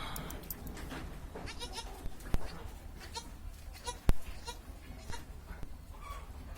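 Goats bleating again and again, short wavering calls following one another. Two sharp knocks come about two and four seconds in, the second the loudest sound. A steady low rumble runs underneath.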